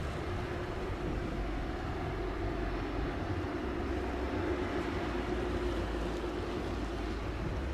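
Jet engines of a Condor Airbus A330-900neo taxiing at idle: a steady rumble with a low, even hum.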